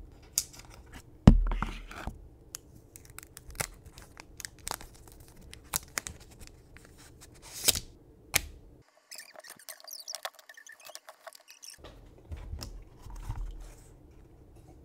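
Unboxing handling noises: paper packaging and a protective strip being torn and peeled off, with a run of sharp clicks and taps and one heavier knock on the desk about a second and a half in.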